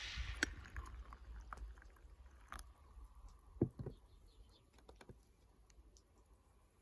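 Small wood fire crackling, with scattered sharp pops and snaps, the loudest about two and a half and three and a half seconds in.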